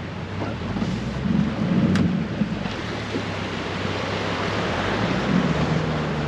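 Boat's outboard motor running steadily at low speed, under a loud rush of wind and water noise.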